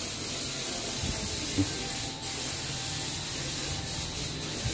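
Steady hiss with a few soft low knocks about a second in.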